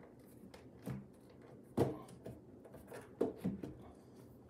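Roland VGA5 amplifier chassis knocking and scraping against its cabinet as it is pushed back into place: several short knocks, the loudest about two seconds in, with a few more close together near the end.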